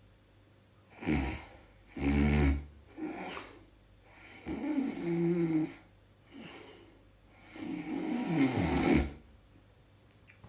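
A person snoring loudly in a run of about six irregular snores and snorts with short pauses between them. Some are rasping breaths, and others carry a low droning pitch.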